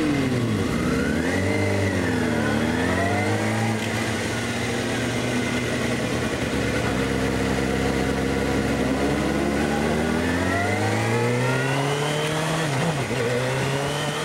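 Sport motorcycle engine accelerating through the gears: the pitch climbs and falls back at each shift, holds steady for several seconds at cruising revs, then climbs again with a sharp drop at a gear change near the end.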